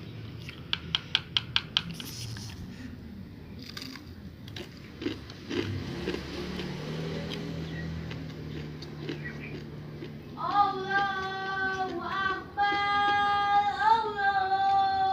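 About seven quick, sharp clicks in the first two seconds, then from about two-thirds of the way in a loud, high melody of long held notes with small slides between them.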